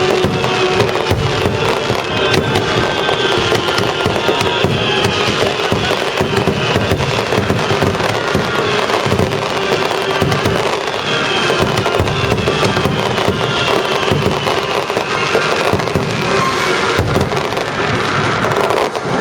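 Fireworks bursting and crackling in a dense, continuous barrage over loud orchestral music played through the venue's loudspeakers.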